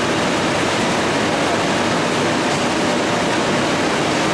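Steady, loud rushing hiss that holds an even level without any change.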